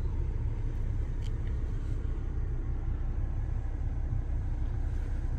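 Steady low rumble heard inside a stationary car's cabin, with a faint click about a second in.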